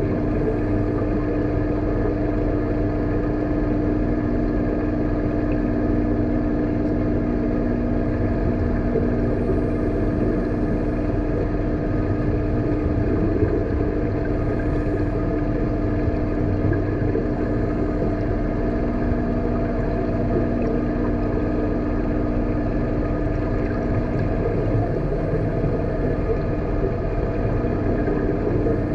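Steady machine hum of an aquarium tank's water pumps and filtration, heard through the water: two constant low tones over an even rushing noise.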